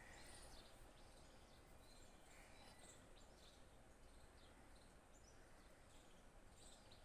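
Near silence: faint background hiss with scattered faint bird chirps.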